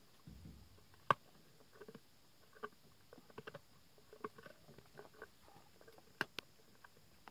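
Male lion chewing on an antelope's ribcage: irregular, faint wet cracks and crunches of bone and flesh, the sharpest about a second in and two more around six seconds. A brief low rumble comes just after the start.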